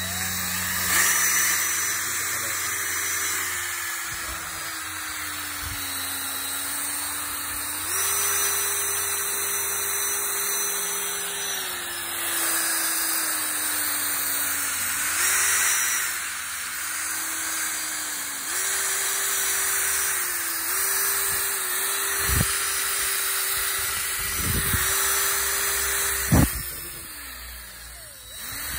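Cordless drill spinning a foam polishing pad on a plastic headlight lens, its motor whine stepping up and down as the trigger is squeezed and eased. A few sharp knocks come in the last few seconds, and near the end the motor winds down and then starts again.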